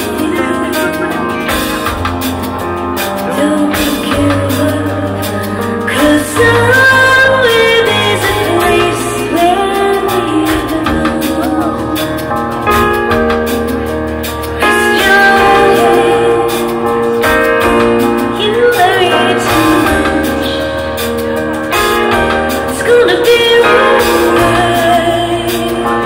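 Live band music: a woman singing lead over electric bass and drums.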